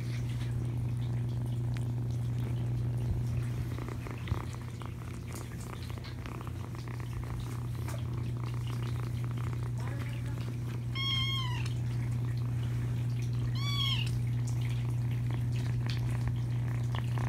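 Kittens purring steadily, with two short kitten meows in the second half, each rising then falling in pitch.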